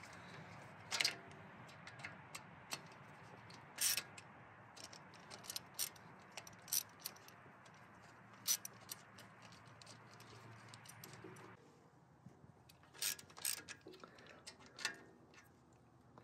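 Hand socket ratchet clicking in short, irregular runs as it spins bolts down on the rocker shaft of an engine's valve gear. Faint, with a few sharper metal clicks and taps standing out.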